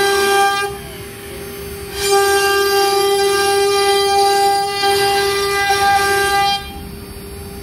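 CNC router spindle whining at a steady high pitch as the bit carves a relief pattern into a board. Twice, about a second in and near the end, the whine drops much quieter for about a second before coming back.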